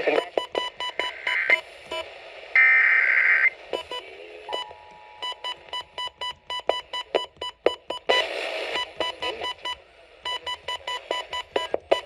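Electronic beeps and tones of a broadcast Emergency Alert System test: a fast train of short, high beeps, broken by a loud burst of dense tones about three seconds in and another short burst near the eighth second.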